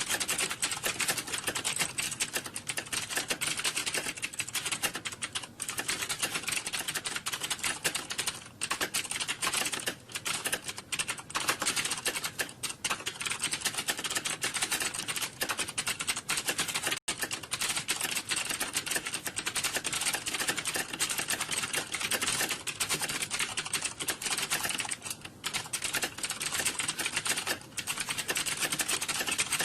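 Computer keyboard typing: a dense, continuous clatter of keystrokes with no pauses, broken only by a momentary cut about seventeen seconds in.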